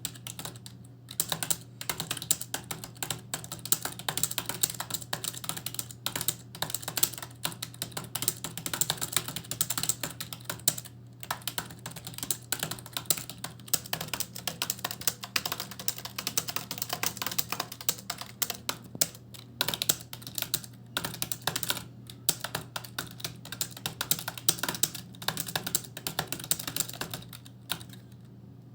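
Fast typing on a computer keyboard: a rapid, continuous patter of key clicks broken by a few short pauses, stopping shortly before the end. A steady low hum runs underneath.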